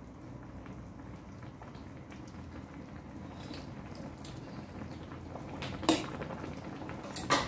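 Pot of chicken and pickled mustard greens soup simmering with a soft, steady bubbling. Near the end a ladle clinks sharply against the pot once, then two or three times more, as the soup is stirred.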